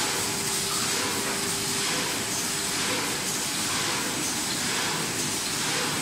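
Dual-press hot foil stamping and die cutting machine running: a steady mechanical noise with a hiss, and a faint steady tone underneath.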